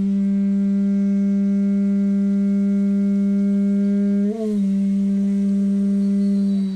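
Conch shell blown as a horn in one long steady note. About four seconds in, the tone wavers and almost breaks for a moment, the kind of cut that comes when the player's air pressure falls short, then holds again until it stops.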